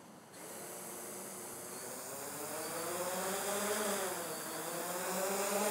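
Hexacopter's electric motors and propellers spinning up: a buzzing hum that starts shortly after the beginning, grows steadily louder and wavers up and down in pitch as the throttle changes.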